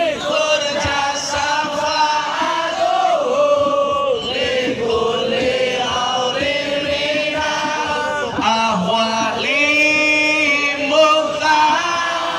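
Devotional chant (shalawat) sung through a PA sound system: a man's voice holds long, wavering notes with sliding ornaments, and other voices join in.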